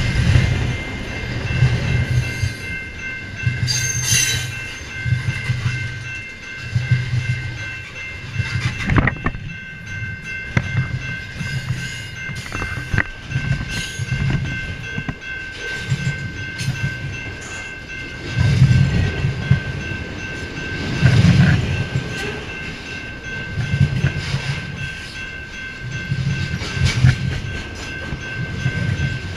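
A freight train rolling past, its cars clacking over the rail joints in a regular rhythm about once a second, with a steady high-pitched tone ringing over it.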